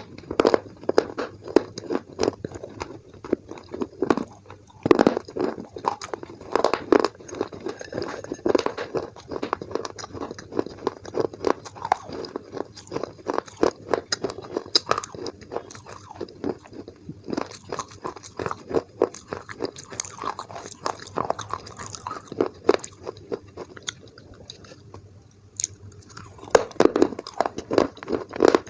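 Close-up crunching and chewing of a baked clay pot: hard bites crackling apart, then rapid gritty chewing. It goes quieter for a few seconds about three quarters of the way through, then loud crunching starts again.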